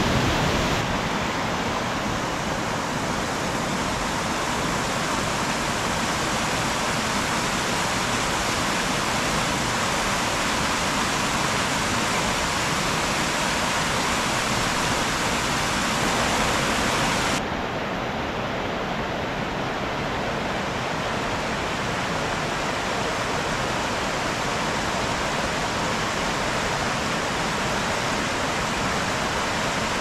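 Mountain stream and small waterfall: a steady rush of water splashing and tumbling over rocks. It changes abruptly twice, just under a second in and again a little past halfway, when it loses some of its high hiss.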